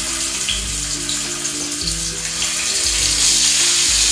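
Chicken and vegetable shashlik skewers sizzling in hot cooking oil in a frying pan as more skewers are laid in, the sizzle getting louder in the second half.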